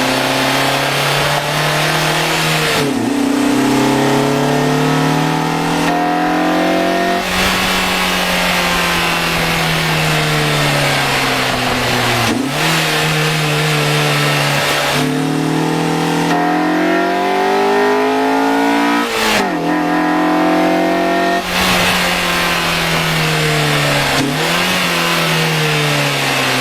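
Honda Accord Euro R's engine revving, its note climbing and falling repeatedly with about six sudden drops in pitch.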